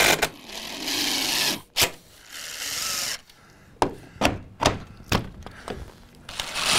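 Cordless driver running in two bursts of about a second each, driving screws into the wooden door frame, followed by a string of sharp knocks and clicks.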